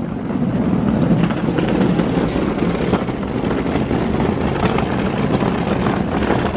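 Wheels of a rolling bag running over a rough, exposed-aggregate concrete sidewalk: a steady, grainy rattle.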